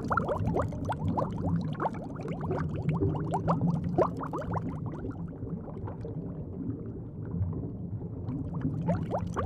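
Bubbling, gurgling watery sounds, many short quick pitch sweeps, over a low steady hum.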